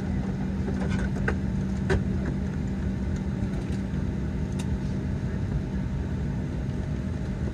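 Steady hum inside the cabin of a parked Boeing 737-800, a constant low tone over a rumble, with a few light clicks and knocks in the first couple of seconds and one more near the middle.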